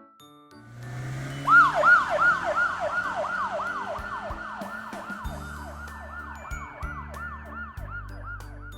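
Police van siren wailing in quick, repeated falling sweeps, about three a second. It starts about a second and a half in and slowly fades.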